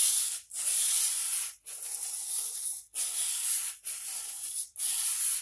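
400-grit sandpaper wrapped around a wooden block, rubbed along a small axe's edge in slow, even strokes about once a second, each a dry hiss. It is honing the freshly filed scandi bevel, smoothing out the file's scratch marks.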